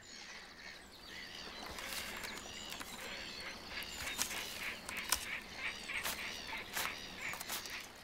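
A colony of black-headed gulls calling: many short, harsh, overlapping calls, faint at first and busier from about two seconds in.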